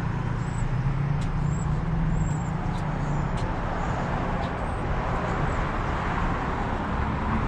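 Steady city street traffic noise, a continuous hiss and rumble of passing cars, with short high chirps sounding now and then over it.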